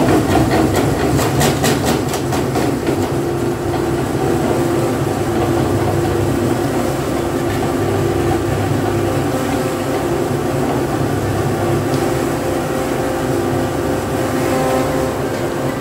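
Electric meat mincer switched on and running steadily, its motor droning as it grinds spiced chicken through a fine plate. It starts suddenly, with a brief rattle in the first two seconds.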